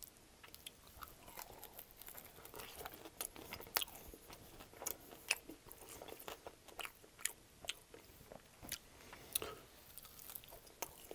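Close-miked chewing of an extra-crispy air-fried chicken wing, with irregular crunches and clicks and a bite into the wing near the end.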